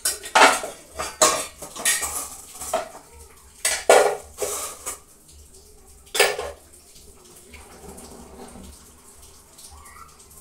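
Metal cooking utensils and steel pots clattering and clanking: a quick run of sharp metallic knocks over the first six seconds, then it goes quiet.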